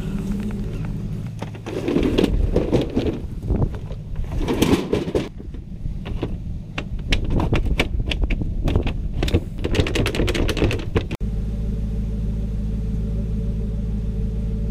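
Irregular knocking, rustling and gusts of noise, then after an abrupt cut about eleven seconds in, the steady engine and road drone of a Ford Crown Victoria being driven, heard from inside the cabin.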